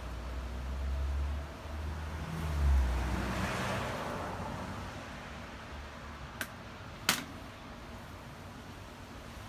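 A low rumble that swells and fades over the first few seconds, then two sharp clicks, the second louder.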